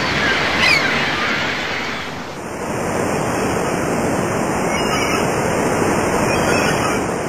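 Ocean waves and surf: a steady rushing wash of water, with a few short high-pitched glides about a second in.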